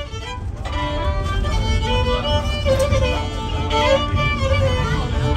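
A fiddle bowed by hand, playing a melody over a steady low rumble.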